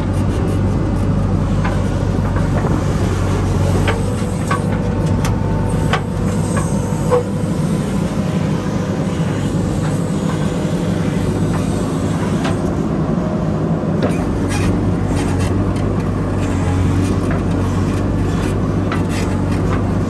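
Diesel engine of a JCB 3DX backhoe loader running steadily while working, with scattered clanks and knocks throughout.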